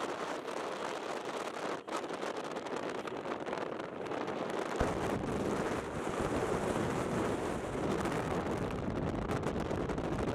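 Wind buffeting the microphone, with road and traffic noise, while riding in the open back of a moving pickup truck. The low wind rumble grows louder about five seconds in.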